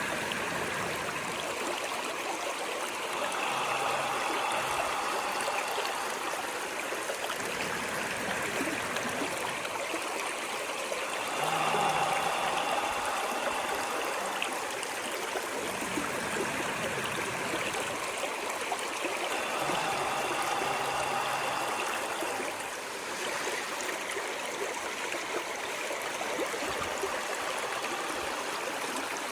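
Stream water running and trickling in a steady rush, with slight swells in gurgling about every eight seconds.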